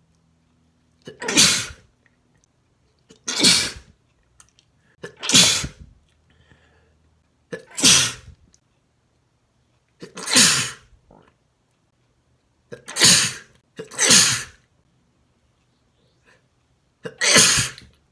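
A man sneezing eight times in a row, wet, spraying sneezes about every two to three seconds, each a short lead-in followed by a loud burst with a voice that drops in pitch.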